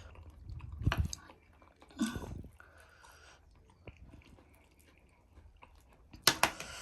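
A person chewing a mouthful of spicy noodles and soft chatpate, with a few sharp clicks or knocks: about a second in, around two seconds, and near the end.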